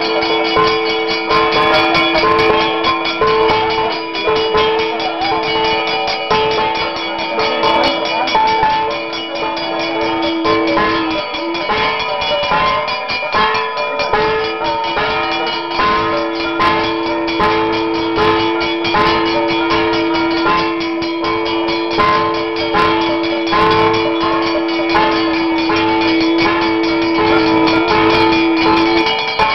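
Temple ritual music: a steady two-note drone held under a wavering melody, with drums beating throughout. A brass hand bell is rung by the priest during the serpent-deity abhishekam.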